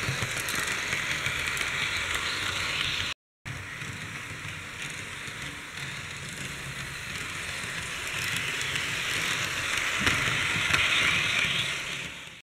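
Model diesel locomotives running on a model railway track: a steady whirr of the small electric motor with wheels rattling over the rails. The sound breaks off briefly just after three seconds, swells as a train comes close near the end, then cuts off suddenly.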